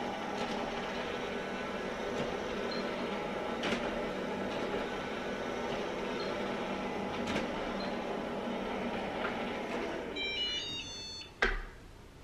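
Robot vacuum running with a steady motor whirr. About ten seconds in it plays a short tune of high beeps, then a sharp click, and the motor stops.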